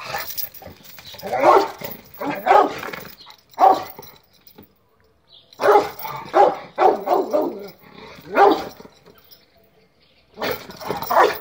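Rottweiler barking repeatedly: a few spaced barks, then a quicker run of barks in the middle, a short pause, and barking again near the end.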